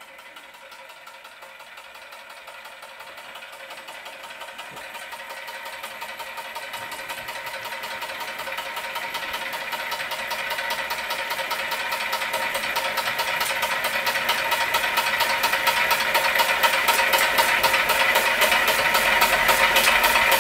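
Weeden No. 49 model steam engine running under steam: a rapid, even clattering beat over a steady tone, growing steadily louder. It is fed by a meths burner with only one good wick, just about making enough steam.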